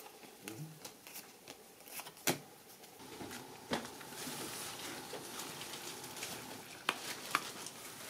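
Monopoly Deal playing cards being laid and tapped down on a wooden table, a few light clicks and slaps. About halfway through, a faint steady hiss takes over, with a couple more isolated clicks.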